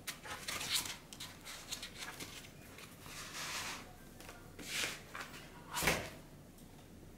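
Handling noises: white foam packing blocks scraped and shuffled across a table while a car head unit is moved about on them, in a string of short rustles and scrapes. A sharper knock about six seconds in is the loudest sound.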